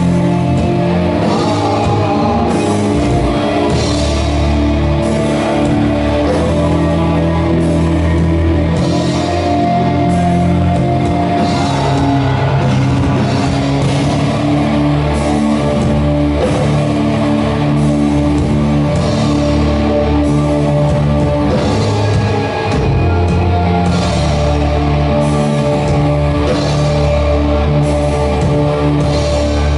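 Doom metal band playing live: slow, heavy, long-held distorted guitar and bass chords with keyboards, and a drum kit with cymbal hits about every second.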